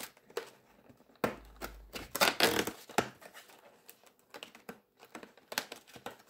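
A cardboard advent calendar door being pried and torn open by hand. Scattered clicks and scrapes, with two louder rustling tears about one and two seconds in.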